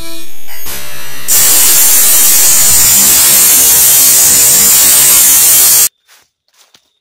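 Loud distorted electronic static and buzzing, a glitch sound effect. It starts abruptly as a buzz, turns to harsh hiss after about a second, and cuts off suddenly near the end, leaving only faint rustling.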